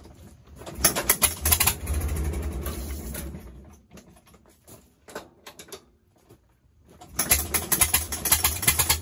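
Farmall F20's four-cylinder engine being hand-cranked cold on quarter choke: it fires and sputters in a quick run of pops twice, about half a second in and again about seven seconds in, each time without catching and running.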